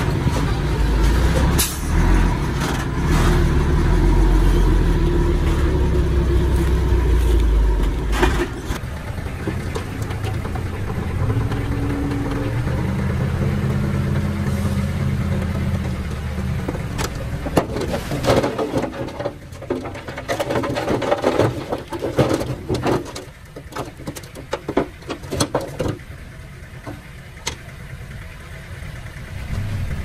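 Heavy diesel earthmoving machinery running, with the engine loudest and steady for the first eight seconds or so, then quieter with a shifting pitch. From about seventeen seconds a run of sharp metallic clanks and knocks sounds over the engine.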